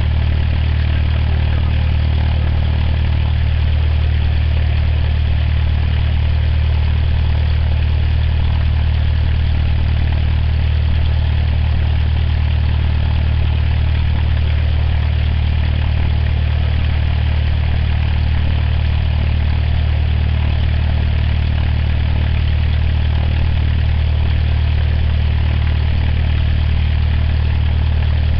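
Cessna 172's piston engine and propeller idling with the aircraft standing still: a steady, even low drone that holds the same pitch and loudness throughout.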